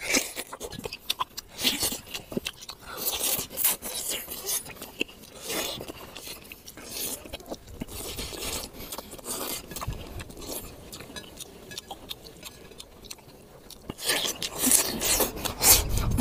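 A man eating grilled fish with his hands: chewing and sucking flesh off the bones, heard as many short irregular mouth clicks and wet rustles, busier and louder near the end.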